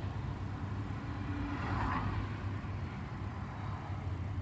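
Car cabin noise heard from inside the vehicle: a steady low engine and road rumble, with a faint swell in the noise about two seconds in.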